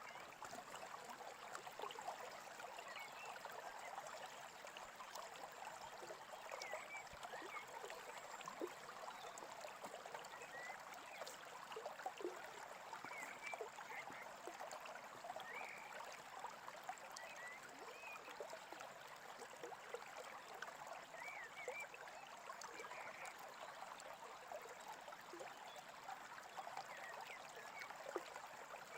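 Small stream babbling steadily, faint, with a few brief bird chirps scattered through it.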